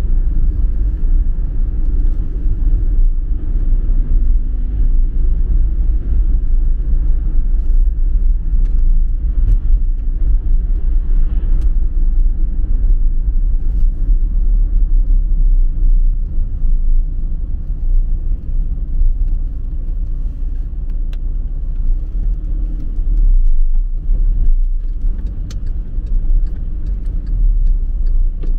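Steady low rumble of a car's road and engine noise heard from inside the cabin while driving at town speed. A few faint ticks come through near the end.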